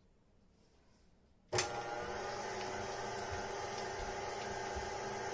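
Near silence, then an electric stand mixer switches on about one and a half seconds in and runs steadily, its wire whisk beating butter in the steel bowl.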